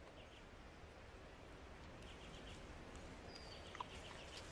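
Quiet wilderness ambience with a few faint, high bird chirps in short quick runs, near the start, around the middle and again later.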